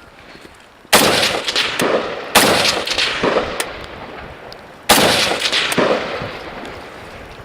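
Three rifle shots, the second about a second and a half after the first and the third about two and a half seconds later, each followed by a long echoing decay.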